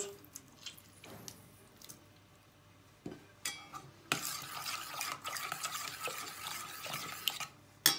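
A fork whisks briskly through a thick yogurt-and-lentil mixture in a stainless steel pot, scraping against the pot's metal sides. A few faint taps come first, the steady stirring starts about halfway in, and it stops just before the end with a sharp click.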